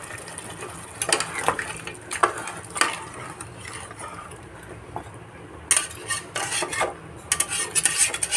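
Metal spatula stirring a watery mutton curry in a pressure cooker, scraping and knocking against the pot in irregular strokes. The strokes come thickest about a second in and again through the last three seconds.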